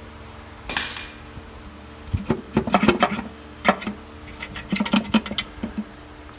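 Metal-on-metal clanking and knocking as the oil pan is worked loose from the engine: a short scraping rasp about a second in, then a quick run of sharp knocks and clinks.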